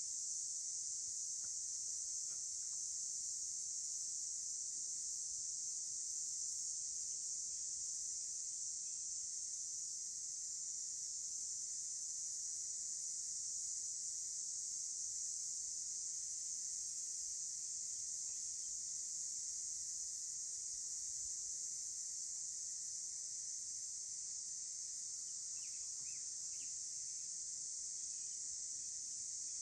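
Steady, continuous insect chorus with a high, unbroken pitch, with a few faint short chirps near the end.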